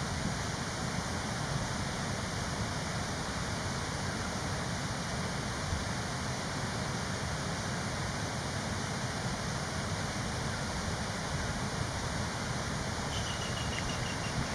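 Steady rushing noise with a low, uneven rumble underneath. Near the end, a faint short run of high repeated chirps.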